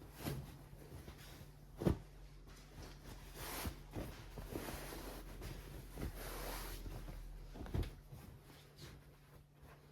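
Household handling sounds: a few light knocks, the sharpest about two seconds in and near the end, with swishing rustles in between, over a low steady hum.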